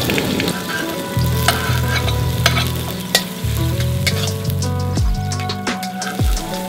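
Sliced garlic and red chili sizzling in hot oil in a wok, a dense crackle with sharp spattering pops throughout, as they sweat at the start of a stir-fry.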